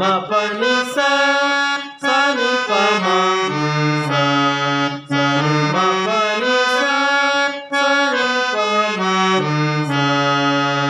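Harmonium played in Revathi raga: sustained reedy notes stepping up and down through the scale phrases, with lower notes held under the melody. There are brief breaks between phrases, about 2 and 5 seconds in.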